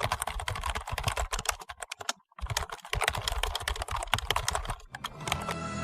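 Rapid computer keyboard typing, a dense run of key clicks with a brief pause about two seconds in. Music comes in near the end as the typing stops.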